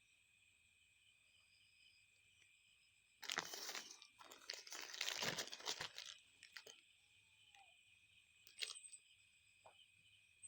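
A cat crunching and chewing fried fish: a burst of crunching for about three seconds, then a few faint clicks.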